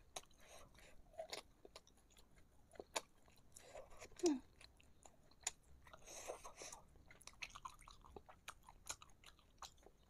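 Close-miked chewing of fried meatballs (bakso goreng) in spicy sauce: soft, irregular wet mouth clicks, smacks and light crunches, with one louder, short low sound falling in pitch about four seconds in.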